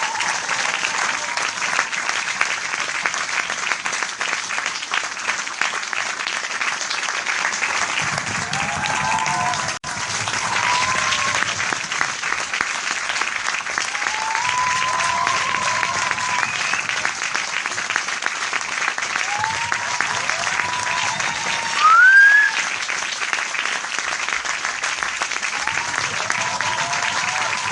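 Large crowd applauding steadily, with voices calling out in cheers every few seconds. A short rising whistle about 22 seconds in is the loudest moment.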